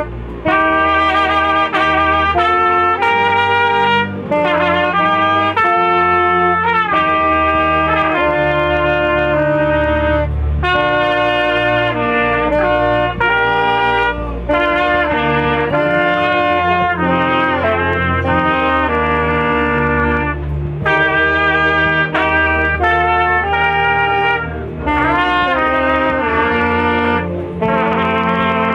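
Music with a brass melody, a run of short changing notes over a continuous bass line.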